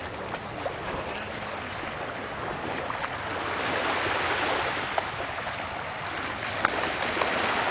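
Small waves washing onto a sandy beach, with wind on the microphone: a steady, even rush of noise.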